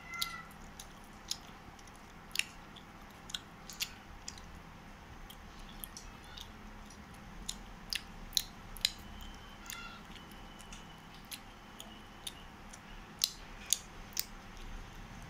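A child chewing a mouthful of rice and meat eaten by hand: scattered sharp wet clicks and lip smacks, irregular, about one a second.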